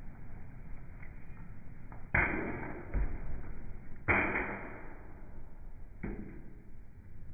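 Thrown knives striking a wooden target three times, about two seconds apart, each hit a sharp thunk that rings briefly; the third hit is softer.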